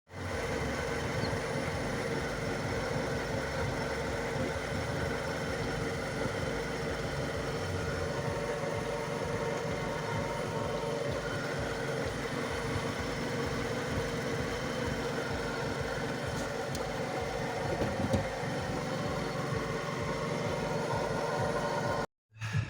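Ford Escape engine idling steadily while the steering wheel is turned, with a brief rubbing noise about 18 seconds in. The owner traces the rubbing to a link sitting higher after new struts were fitted and catching on the steering.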